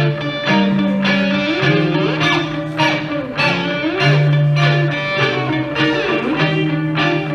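Electric guitar music played through effects: sustained low notes that change pitch every second or so under repeated plucked attacks and sliding, wavering tones.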